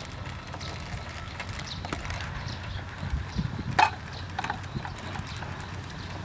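Light knocks and clinks of metal cooking utensils over a low steady rumble, with one sharper clink a little before four seconds in.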